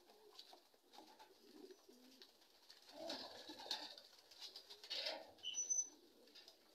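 Racing pigeons cooing faintly, with soft low calls about three and five seconds in.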